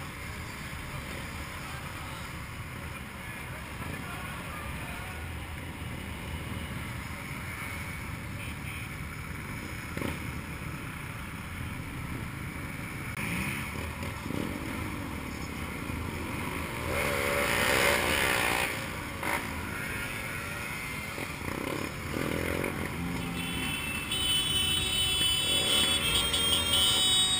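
Motorcycles in a slow group ride idling and moving off, heard from the rider's own bike. A louder rev with rising and falling pitch about two-thirds of the way through, and the engines grow louder near the end as the group gets under way.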